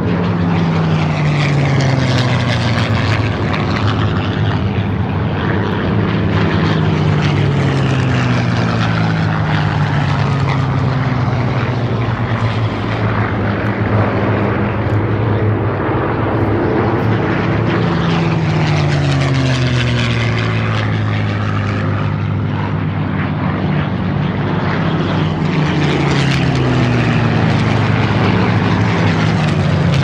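World War II piston-engined propeller fighters flying low passes overhead; the engine drone falls in pitch each time an aircraft goes by, several times over.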